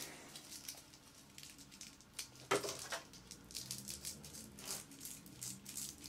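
Faint crinkling and light clicking as a strip of Velcro is cut with scissors and handled. There are louder clicks about two and a half seconds in and again near five seconds.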